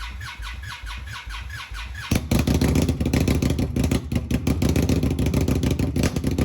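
Indian Scout Bobber's fuel-injected V-twin being cranked by its electric starter in a steady rhythm of about five strokes a second. About two seconds in it suddenly catches and runs, much louder. This is a hard cold start: the owner blames a too-lean mixture in freezing air.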